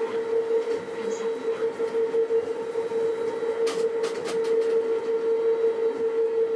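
Uijeongbu Light Rail's rubber-tyred automated train running along its guideway, heard from inside the car: a steady whine over rolling noise. A few faint clicks come about four seconds in.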